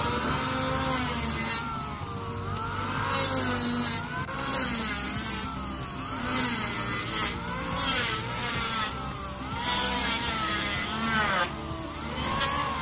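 A small engine revved up and down over and over, its pitch rising and falling about once a second, over a steady low hum.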